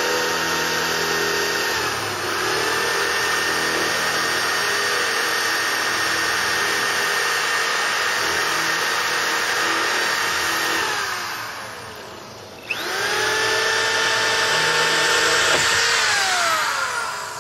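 Corded electric power tool running at high speed with a steady whine, winding down about eleven seconds in, starting up again a second later and winding down near the end.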